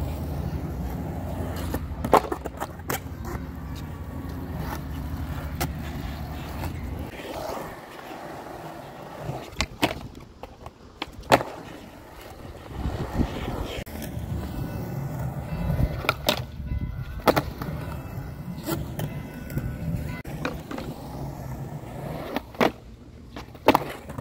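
Skateboard wheels rolling on concrete, with sharp clacks of the board popping and landing, about nine in all spread across several tricks.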